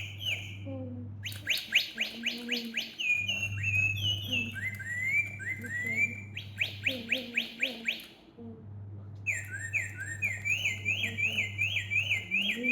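A bird toy sounding repeated runs of bird-like chirps, fast trills and rising and falling tweets, with short pauses about a second in and around eight seconds in, over a low steady hum.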